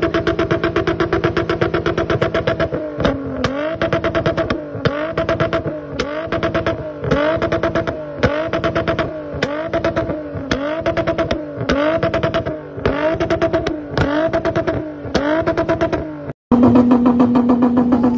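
Stock 2.8-litre VR6 engine of a Mk3 Volkswagen Jetta held at high revs, then revved in quick repeated blips a little under twice a second, the pitch dipping and climbing back each time with a sharp crack from the exhaust. Near the end it cuts to another car's engine held at a steady rev.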